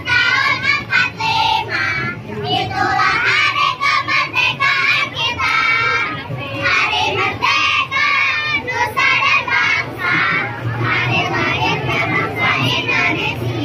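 A group of children singing together as they march, with crowd voices around them.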